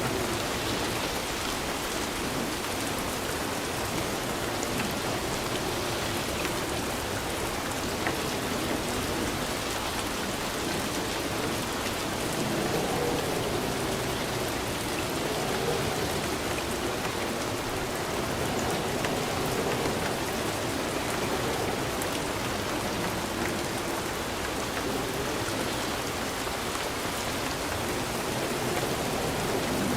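Steady rain falling and pattering on surfaces, an even, dense hiss that holds at the same level throughout, with a faint wavering lower tone beneath it.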